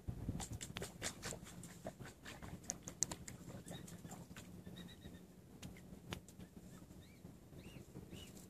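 Faint peeping of mute swan cygnets brooded under the sitting hen: a few short high chirps that rise and fall, in two small groups near the middle and near the end. Scattered dry clicks and rustles in the first few seconds.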